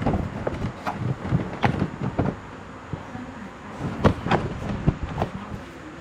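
Irregular knocks, clicks and rustling: handling and movement noise as someone shifts about and gets into position, loudest at the start and again about four to five seconds in.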